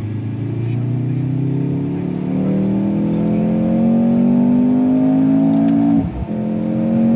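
Mercedes-AMG C43 engine under full acceleration, heard from inside the cabin. Its pitch climbs steadily, drops in a quick automatic upshift about six seconds in, then rises again.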